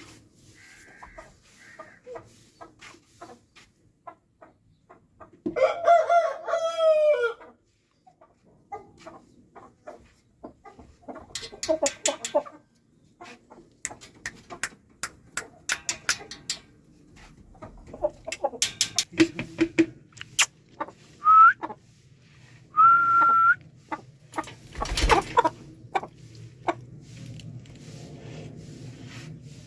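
Chickens clucking, with a rooster giving one long crow about six seconds in and short clucks and calls scattered throughout.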